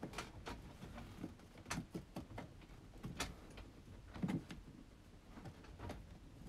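Faint, irregular clicks, taps and scrapes of a plastic battery-monitor gauge being pushed and worked into a snug, freshly drilled hole in a wooden panel, with a slightly louder knock about four seconds in.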